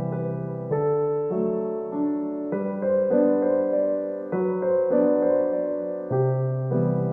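Background music: soft piano or electric piano playing slow sustained chords that change about once a second.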